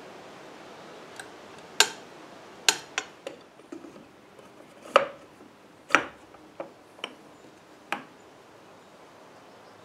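Steel parts of a drill-press XY table, a threaded lead screw and its bearing blocks, clinking and knocking against each other and the bench as they are handled and fitted. There are about ten sharp clicks at uneven spacing, some close together, the loudest about five and six seconds in.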